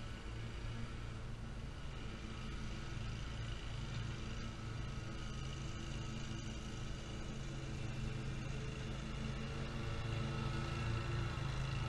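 Commercial lawn mower engine running steadily at an even speed, growing a little louder near the end.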